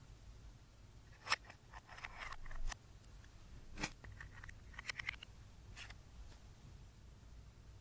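Handling noise: a few sharp small clicks and a short scraping crackle, with a cluster of quick clicks about five seconds in.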